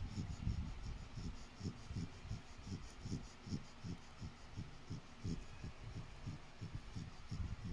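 Sleeping dog snoring, a fast run of low throbbing breath pulses at about three a second.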